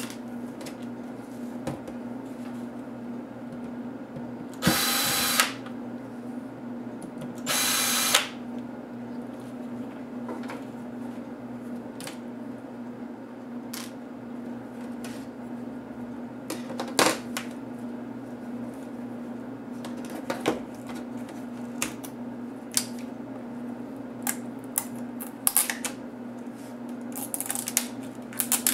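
Laptop LCD panel being taken apart: plastic backlight sheets and a thin metal frame click, tap and rattle as they are handled, the clicks coming thicker near the end, over a steady low hum. A few seconds in come two short whirring bursts of a small motor, about three seconds apart.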